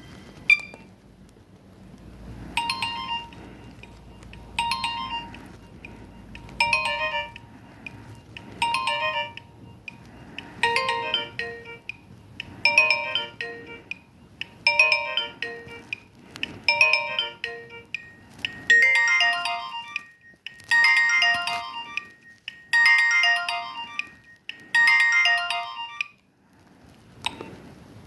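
Nokia 1209 mobile phone ringtone playing: a short electronic melody repeating about every two seconds, growing fuller with added notes in the later repeats.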